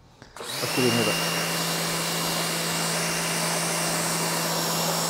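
Electric pressure washer triggered about half a second in: the motor comes up to speed with a brief rising whine, then runs with a steady hum. A 40-degree nozzle hisses as its water spray hits rubber car floor mats on concrete.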